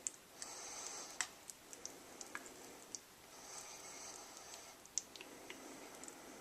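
Faint, scattered clicks and light taps, about half a dozen, spread unevenly, with a soft hiss between them.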